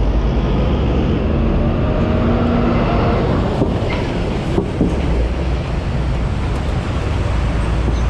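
Heavy road traffic close by: a minibus and then a box truck drive past with their engines running, over a steady low rumble.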